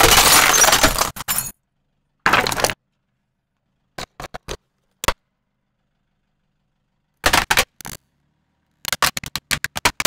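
A car tyre crushing a plastic wall clock, its casing cracking and crunching in a loud burst at the start, followed by a shorter crunch and a few small clicks. Near the end the tyre crushes a plastic steam iron, its shell breaking in a quick run of sharp cracks.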